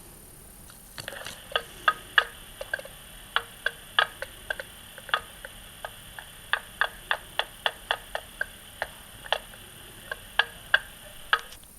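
Irregular sharp clicks or taps, about two to three a second, starting about a second in and stopping near the end, made as a spooky sound effect.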